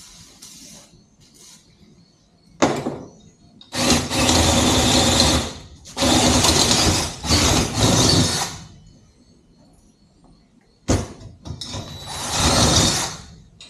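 Power drill boring a hole through a scooter's metal swing arm, running in about six bursts, the longest about two seconds, with short stops between them.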